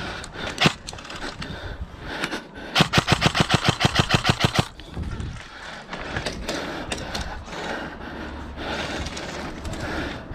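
Airsoft rifle firing a full-auto burst of about twenty rapid shots, roughly eleven a second, lasting nearly two seconds, with scattered single clicks before and after.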